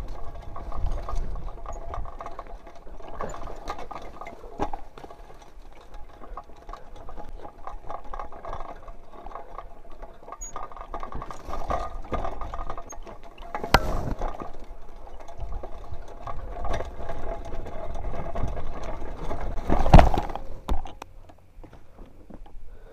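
Mountain bike riding down a rough dirt single-track: tyres on loose dirt and dry grass, with the frame and parts rattling over the bumps. Two hard knocks land in the second half, the later one the loudest, as the bike hits bumps or rocks.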